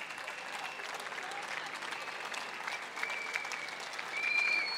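Crowd applauding, many hands clapping, with several long, steady whistles at different pitches over the clapping; the loudest whistle comes shortly before the end.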